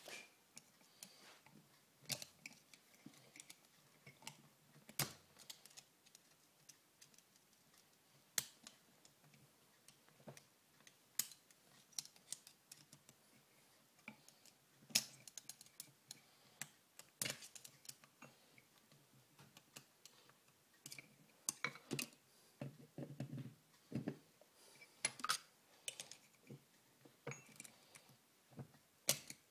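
Light metallic clicks and clinks of gears and shafts being handled and set into an early Harley-Davidson Shovelhead four-speed gearbox case during reassembly. The clicks come irregularly, a few seconds apart, and bunch more closely about three-quarters of the way through.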